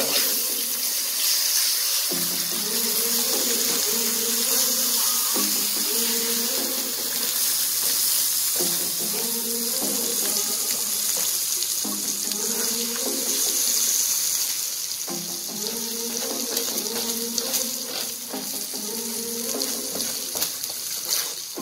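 Eggs and tomato-onion masala sizzling in oil in a nonstick frying pan as they are stirred and broken up with a spatula: a steady high hiss.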